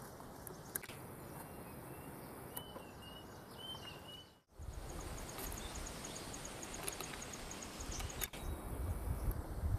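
Faint outdoor ambience at a still-water pond: a steady background hiss with a few short chirps in the first half. After a brief dropout about halfway, an insect's rapid, evenly spaced high ticking call runs for about three seconds.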